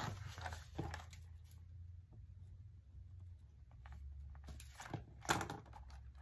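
Paper money and translucent plastic cash-envelope sleeves rustling as they are handled in a ring binder. There is a sharp click at the very start, a quieter stretch in the middle, and another burst of rustling about five seconds in.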